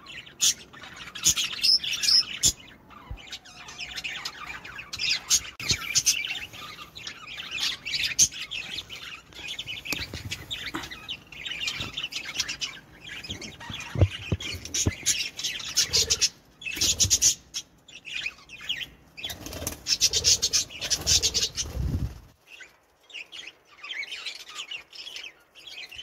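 A flock of budgerigars chirping and chattering in many short, high calls, with bursts of wing flutter as birds move about the cage.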